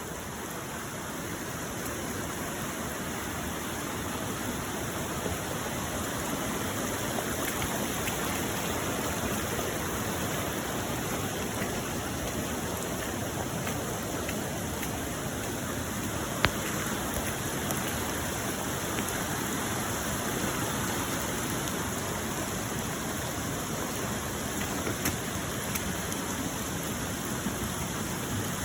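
Floodwater rushing steadily, with a single sharp click about sixteen seconds in.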